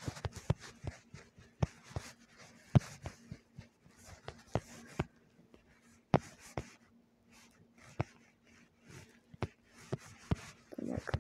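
Irregular taps and short scratchy rubs of a finger or stylus on a phone's touchscreen while drawing and zooming, a dozen or more sharp ticks at uneven spacing, over a faint steady hum.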